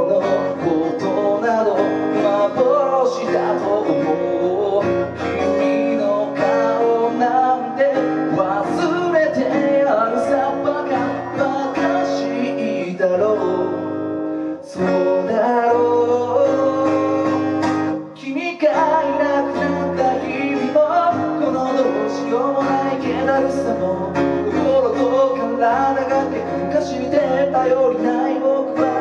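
Acoustic guitar strummed with a man singing over it, a solo guitar-and-vocal live performance, with two brief breaks in the strumming about halfway through.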